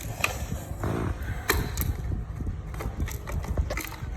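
Irregular clicks and knocks of hard plastic casing parts being handled and pried apart during the disassembly of a Wi-Fi router or TV box, over low handling rumble.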